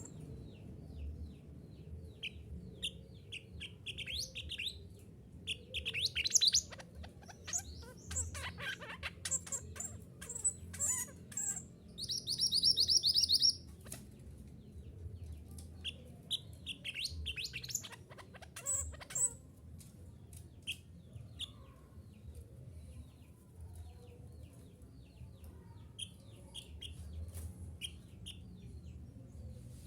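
Mantenan gunung songbird singing: varied phrases of high chirps and trills broken by short pauses, with a loud buzzy rattle about twelve seconds in, over a low steady background hum.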